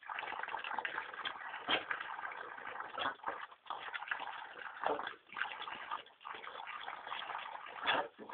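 Water splashing and sloshing as dogs play in it, with a few sharper splashes standing out.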